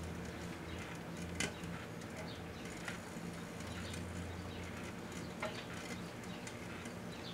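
Microwave oven running with a steady hum while a 5 1/4-inch floppy disk drive burns inside it, giving off a few scattered small pops and crackles, the sharpest about a second and a half in.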